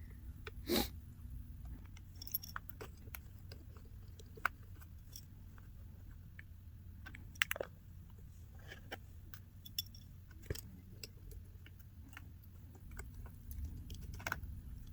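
Scattered small clicks and taps of hand tools working on an iPhone 8's internal metal plate, screws and ribbon cables, over a faint steady low hum.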